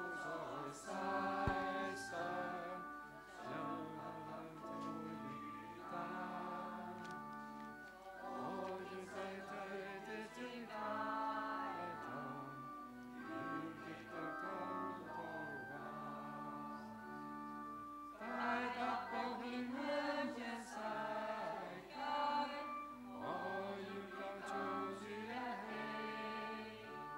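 A church congregation singing a recessional hymn together in Chinese, in phrases with brief pauses between them.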